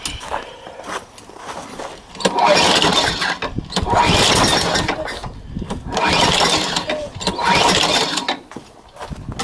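Craftsman lawnmower's 6.75 HP Tecumseh engine being cold-started in freezing weather, sputtering in four loud bursts of about a second each with short breaks between them.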